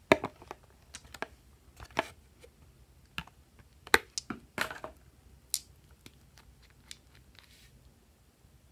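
Small hard plastic pieces being handled: a scattered run of sharp clicks and taps with a few short crinkling rustles, thinning out near the end.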